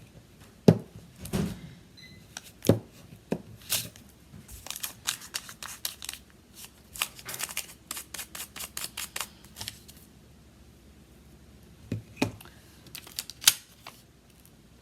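Rubber stamps being handled and used on a craft table: a string of small taps and clicks, with a dense run of quick taps in the middle and a few sharper knocks.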